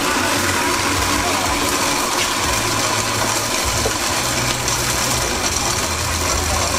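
Street-food stall noise: a steady hiss with a low hum underneath and a few light clicks.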